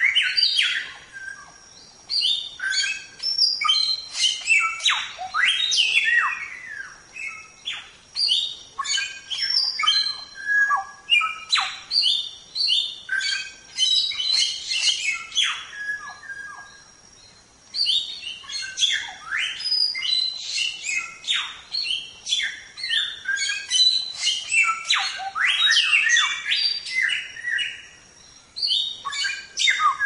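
Samyong (golden whistler) singing in the rapid 'tembak' style: dense runs of sharp chirps and steeply falling whistles. The song breaks off briefly three times, about eight, seventeen and twenty-eight seconds in.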